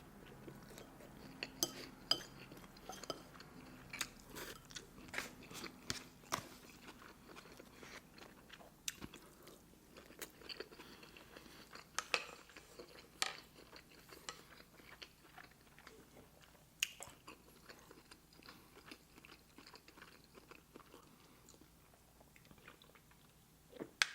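Close-miked eating sounds: a person chewing and biting food, with soft irregular mouth clicks, smacks and occasional crunches.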